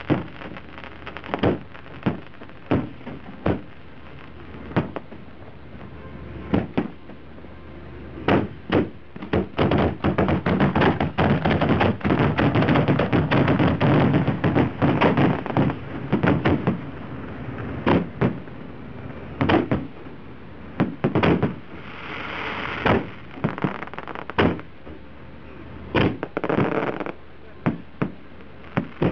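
Fireworks display: shells launching and bursting in a series of sharp bangs, building to a dense barrage of rapid reports and rushing between about ten and sixteen seconds in, with a stretch of hissing crackle a little after twenty seconds.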